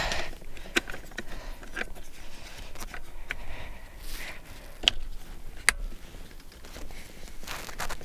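Handling noise of an infant car seat base being tightened onto a vehicle seatbelt: a handful of sharp plastic clicks and knocks, with the rustle of seatbelt webbing and clothing between them.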